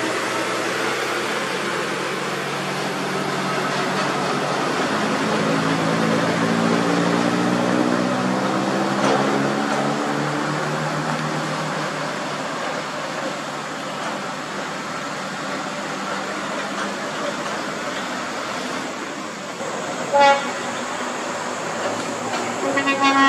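Heavy diesel trucks hauling low-loader trailers passing and climbing an uphill grade, engine and tyre noise with the engine pitch gliding as a truck goes by. A short truck horn toot about 20 seconds in, and another near the end.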